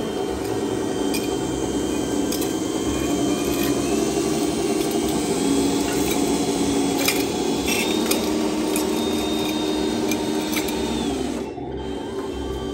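Electric drive motor and gearbox of an RC scale dump truck whining steadily as it crawls up steel loading ramps, pitch shifting slightly with the throttle, with scattered clicks as the tyres cross the ramp rungs. The whine eases off near the end.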